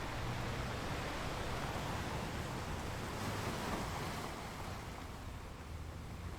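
Ocean waves washing on the shore, a steady rush of surf that swells about three to four seconds in and then recedes.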